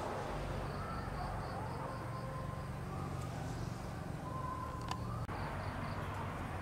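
Steady outdoor background noise with a faint, high animal chirp repeated about four times a second, in two runs.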